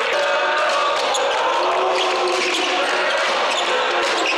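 Basketball game in a gymnasium: the ball bouncing on the hardwood court with short sharp knocks, amid shouting voices echoing around the hall.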